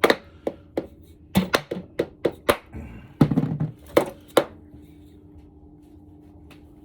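Mallet striking engine parts: a run of light, dull thunks, about a dozen blows over the first four and a half seconds, used to tap a stuck part loose during the engine teardown. The blows then stop.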